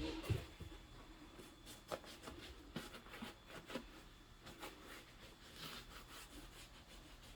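Faint handling sounds: soft rubbing and rustling with scattered light taps and clicks, and a louder knock right at the start, as items are handled and wiped clean for packing.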